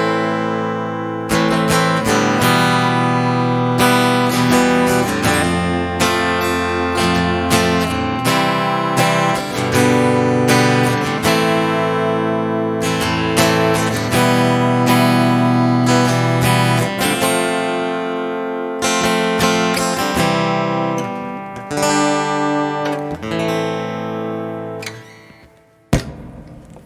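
LTD TL6 thinline acoustic-electric guitar heard through its piezo pickup and a NUX MG30 modeler, with boosted highs and a little reverb, played as strummed chords with many chord changes. The playing fades out near the end, followed by a single sharp click.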